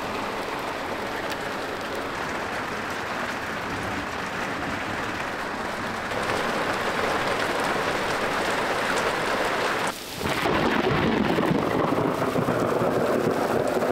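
Heavy downpour in a thunderstorm: a steady hiss of hard rain with thunder rumbling. A short dip about ten seconds in is followed by a louder, deeper stretch.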